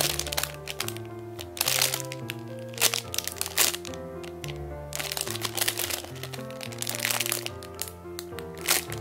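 Background music with a steady stepped melody, over clear plastic packaging crinkling in short bursts several times as a squishy toy sealed inside it is handled and squeezed.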